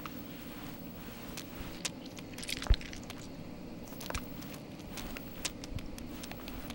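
Foley handling sounds: scattered small clicks and rustles with one heavier knock about two and a half seconds in, over a steady low hum.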